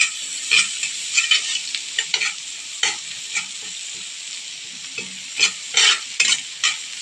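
Garlic and freshly added onion sizzling in melted dairy cream in a frying pan, with a steady hiss, while a utensil stirs them, scraping and knocking against the pan at irregular moments.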